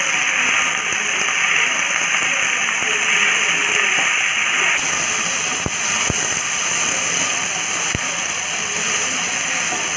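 Chopped onion, tomato and greens sizzling in hot oil in a nonstick kadai as they are stirred with a wooden spatula, with three sharp taps of the spatula against the pan near the middle and toward the end.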